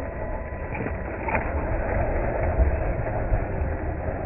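Radio-controlled scale crawler truck driving up a loose dirt slope: its motor and gears whine steadily while the tyres churn through dry dirt.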